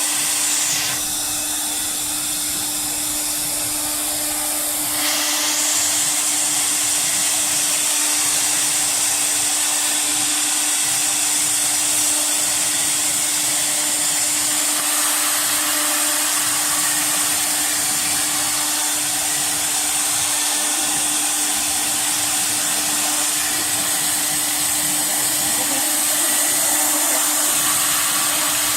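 Air-cooled spindle of a CNC router running at a steady high speed, with a constant whine and a fan-like hiss, as it carves a 3D design into MDF. The cutting sound changes about five seconds in, a mid-pitched layer dropping away as the hiss grows stronger.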